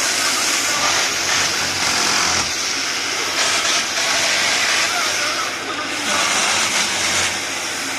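Loud, steady hiss of compressed air and workshop machinery, swelling and easing in stretches of a second or two.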